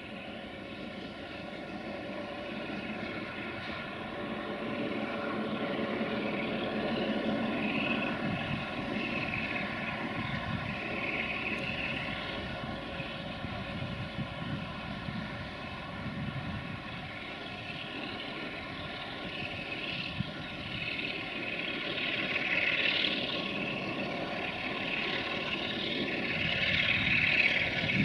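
A CFR class 060-DA (LDE2100) diesel-electric locomotive's Sulzer twelve-cylinder diesel engine running as the freight train approaches, growing steadily louder.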